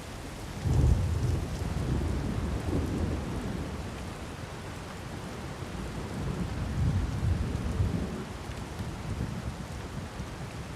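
Thunderstorm in a rainforest: steady heavy rain with a clap of thunder just under a second in that rolls and rumbles on, swelling again about six to eight seconds in before easing.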